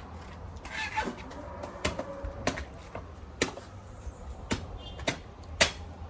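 A blade chopping into a fresh coconut: about eight sharp, irregularly spaced strikes. A short call is heard about a second in.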